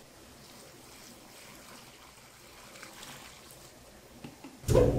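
Water trickling from a jug onto powder and shrimp paste in a steel mixing bowl, faint. Near the end a machine, likely the mixer, starts suddenly and runs on steadily, much louder.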